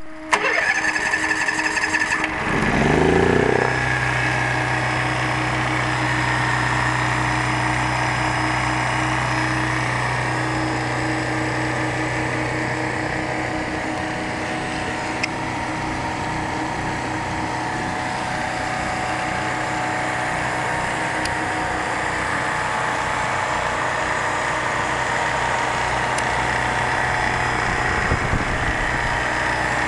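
Kohler 5E 5 kW marine gasoline generator starting: about two seconds of uneven cranking, then the engine catches and its pitch rises quickly before settling into steady running at a constant governed speed.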